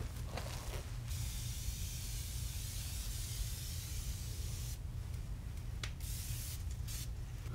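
Aerosol spray can hissing: one long spray of nearly four seconds starting about a second in, then a couple of short bursts near the end.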